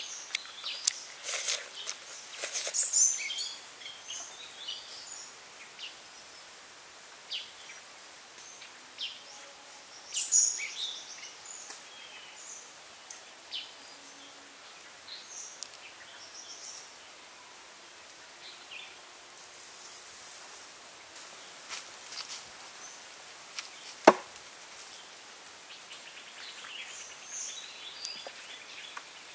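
Outdoor ambience: small birds chirping in short, scattered calls over a steady faint hiss, busiest in the first few seconds, with one sharp knock about 24 seconds in.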